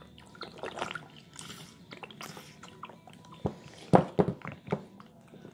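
Blue plastic squeeze bottle being squeezed hard upside down over a glass: irregular crackles and sputters of flexing plastic and spurting air. A few sharp knocks come about three and a half to four seconds in, the loudest near four seconds.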